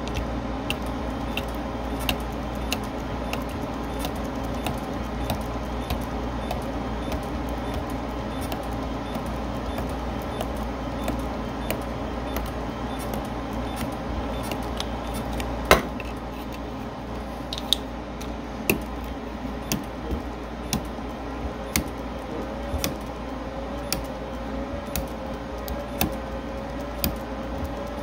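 Capacitor discharge spot welder pulsing through a rolling copper-wheel electrode: a regular train of sharp snaps, about one to two a second, one for each weld spot fusing copper foil to stainless steel, with one louder snap about halfway through, over a steady hum.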